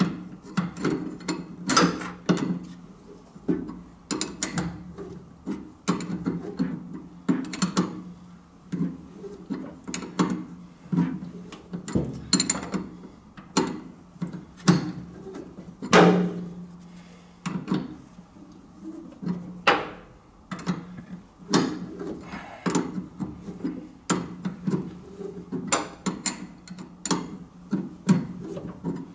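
Steel spanner clicking and knocking against the top nut of a Classic Mini's rear telescopic damper as the nut is worked off a short turn at a time, in irregular metallic clicks.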